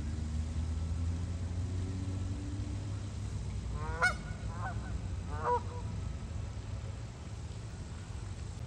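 Canada geese honking: three short honks between about four and five and a half seconds in, the first the loudest, over a steady low rumble.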